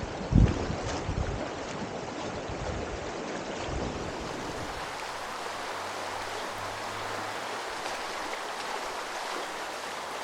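Steady rushing of a clear mountain creek flowing over rocks, heard from a packraft on the water. A single low thump comes about half a second in.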